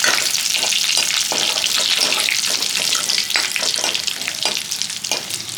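Kari vadagam, a dried onion-and-garlic seasoning, sizzling and crackling in hot oil in a kadai as it is tempered for a kuzhambu, with a dense hiss and irregular pops.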